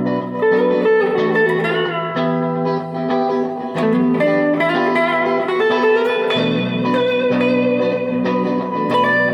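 Electric guitar played through a 1977 Fender Bassman 70 tube amplifier, jamming sustained notes and chords with a few bent notes gliding in pitch.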